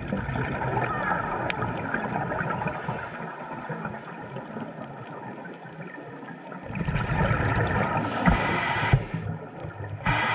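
Underwater camera audio of a scuba diver's regulator breathing: a steady wash of muffled water noise, then bubbling rumble from about two-thirds of the way in, with two short hissing breaths near the end.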